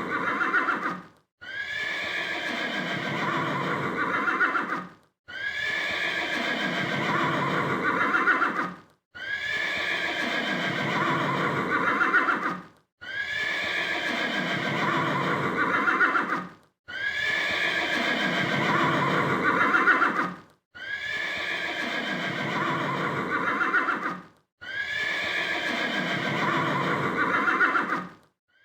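A horse whinnying. The same whinny recording repeats about seven times, each nearly four seconds long with a brief silent gap between: a high call that rises and falls, then a shaking, quavering tail.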